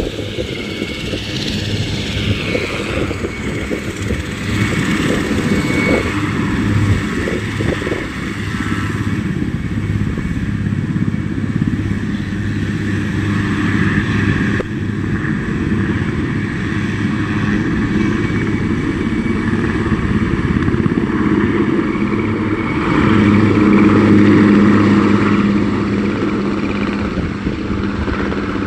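Two RAF Puma twin-turbine helicopters running together: a steady turbine whine over the fast, continuous chop of their rotors. The sound swells to its loudest a little past three-quarters of the way through as they lift off and come closer.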